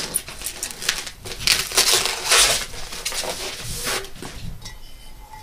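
Packaging crinkling and rustling as a new scooter deck is unwrapped and pulled from its box, in a dense run of crackles for about four seconds that then dies away.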